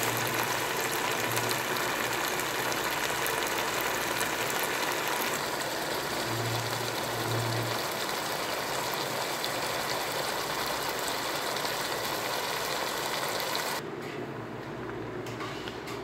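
Chicken and vegetables sizzling and bubbling in sauce in a frying pan, a steady hiss that drops quieter near the end.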